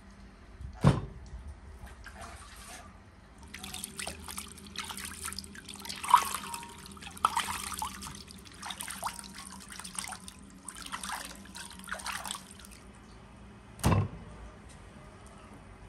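Water splashing and dripping as raw legs of lamb are rinsed in an enamel basin of water and lifted out streaming. There is a dull thump about a second in, and another near the end as a leg of lamb is set down on a wooden table.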